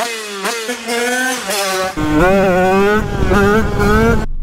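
Two-stroke HM supermoto with a TPR 76 cylinder kit and Yasuni R4 expansion-chamber exhaust, revving hard under acceleration: the pitch climbs and drops back several times, as through gear changes. The sound cuts off suddenly near the end.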